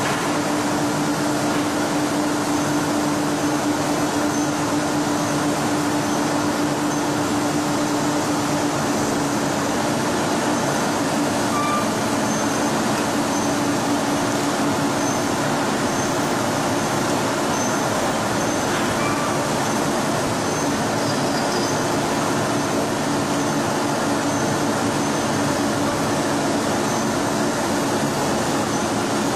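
Aluminium rod rolling mill running: a steady industrial machine din with a constant hum underneath.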